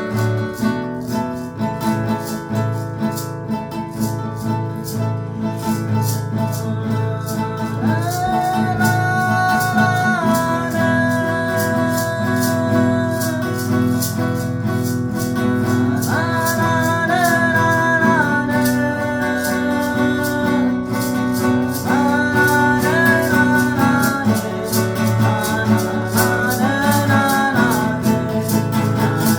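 Acoustic guitar strumming steadily, joined about eight seconds in by a melody of long held, gliding notes that returns several times.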